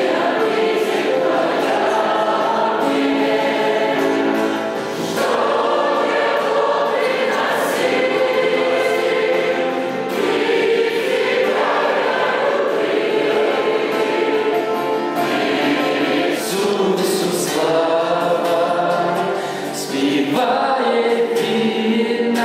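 A large congregation of many voices singing a hymn together, in long held phrases with short dips between lines.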